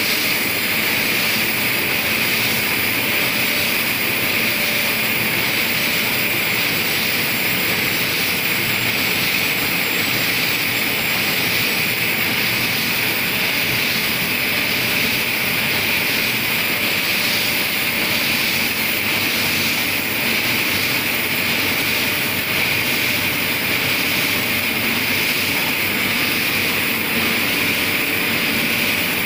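Heidelberg offset printing press running steadily while its coating unit applies UV/aqueous coating to the sheets: a continuous, even machine running noise with a strong high hiss.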